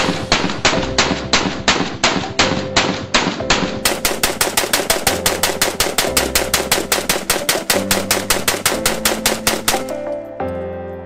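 An AK-pattern rifle firing rapidly in a steady string of about five to six shots a second, over background music. The firing stops about ten seconds in.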